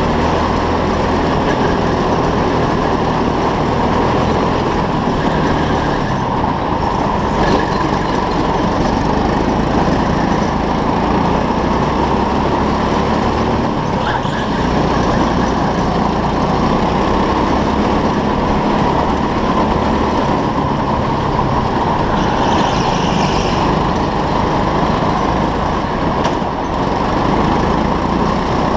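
Go-kart running at speed around an indoor track, heard from the onboard microphone: a steady motor sound and rushing noise that changes little from corner to corner.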